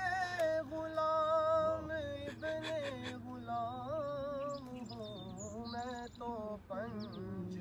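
Unaccompanied voice singing an Urdu naat in long, wavering, drawn-out notes with no clear words, a melismatic passage between verses.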